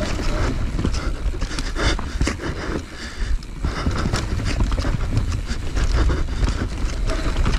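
Enduro motorcycle ridden over rough ground, heard onboard: a constant low rumble and rushing noise full of knocks and rattles, dipping briefly about three seconds in.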